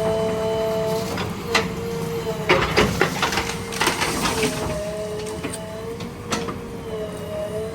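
JCB 3DX backhoe loader working, its engine running with a steady hydraulic whine that wavers slightly in pitch, and a run of sharp cracks and snaps in the middle, like wood splitting as the tree is worked.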